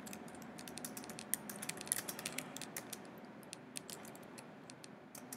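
Typing on a computer keyboard: quick, irregular runs of key clicks, thinning out somewhat toward the end.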